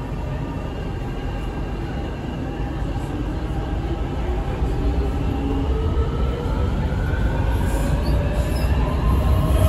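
A Beijing Subway Line 15 train pulling out of the station, heard from inside the car as it accelerates. Its traction motors give a whine that rises steadily in pitch while the low rumble of the running gear grows louder.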